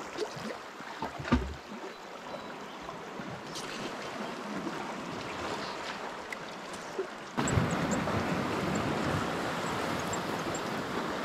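Sea water lapping on a rocky shore with light wind, with a few small clicks and one sharper knock about a second in. About seven seconds in it cuts suddenly to a louder, steady rush of shallow water running over rocks, with faint high ticks over it.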